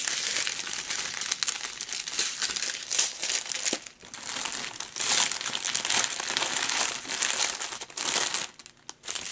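Small plastic bags of diamond-painting drills crinkling as they are picked up and sorted by hand, breaking off briefly about four seconds in and again near the end.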